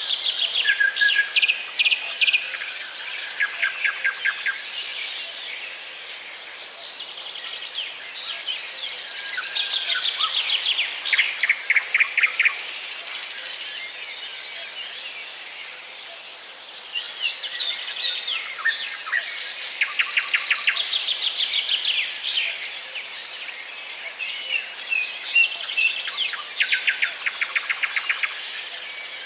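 Small songbirds chirping and calling, several at once, with bursts of rapid trills of quickly repeated notes over a steady background noise.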